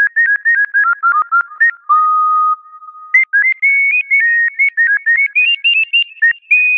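A whistle-like chirping tune of quick, pure notes that dips to one held lower note about two seconds in, then climbs in pitch toward the end.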